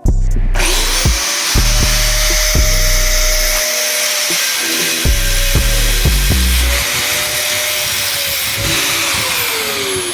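Angle grinder spinning up about half a second in and grinding steel with a harsh, hissing whine, its motor pitch sagging slightly under load, then winding down as it is switched off near the end. Background music with a low beat plays underneath.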